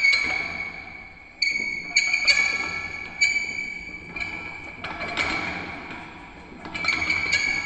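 Metal squeaking and creaking: a string of about seven sharp, high, ringing squeaks, each starting suddenly on the same steady pitch and fading away.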